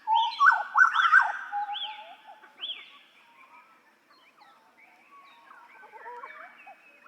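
Butcherbird (jagal Papua) song: a loud burst of fluting notes sliding up and down in the first second and a half, with higher upswept notes repeating until about three seconds in, then softer scattered notes.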